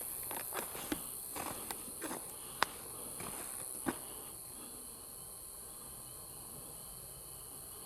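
Steady high-pitched chorus of night insects such as crickets, with a run of sharp crackles and snaps over the first four seconds, like movement through dry leaves and twigs, the loudest near the middle.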